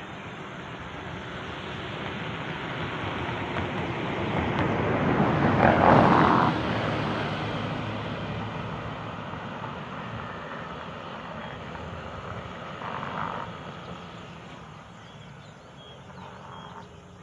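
A vehicle passing by: a broad rushing sound that builds to its loudest about six seconds in, then slowly fades away.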